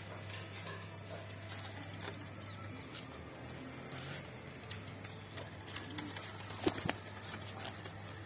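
Domestic pigeons cooing softly and shuffling on a wooden ledge, with scattered light clicks and patters of feet and wings over a steady low hum; a sharper knock stands out about two thirds of the way through.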